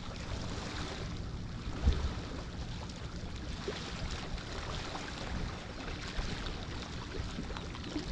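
Wind buffeting the microphone over sea waves washing against the shore, a steady noisy rush, with one brief low bump about two seconds in.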